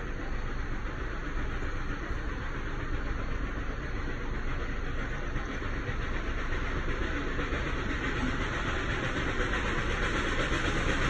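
Steady vehicle noise: a low engine rumble under a hiss, growing slightly louder near the end.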